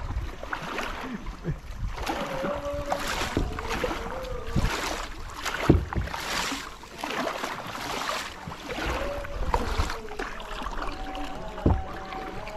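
Kayak paddle strokes swishing through the water, one stroke about every second and a half, with two dull knocks along the way.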